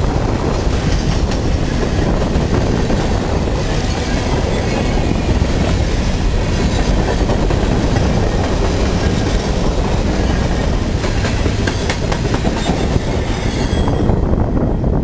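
Freight train covered hopper cars rolling past close by: a loud, steady rumble of steel wheels on rail with a few sharp clicks. Near the end the last car passes and the upper rattle falls away.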